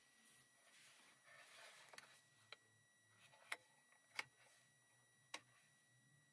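A handful of sharp plastic clicks from the seat-heater switches on a Toyota Corolla's centre console being pressed, loudest around the middle, with a faint rustle of the hand moving earlier.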